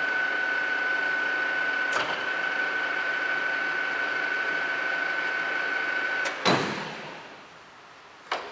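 Kingston HL4000 engine lathe running with its spindle turning: a steady high gear whine over the motor hum. About six and a half seconds in there is a click and a thump as the lathe is stopped, and the running sound dies away over about a second; a single sharp click follows near the end.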